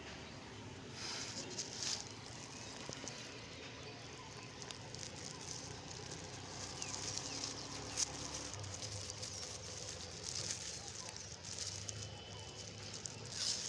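Crackling and rustling of old plastic litter being picked up and handled, in short bursts, with one sharp click about eight seconds in.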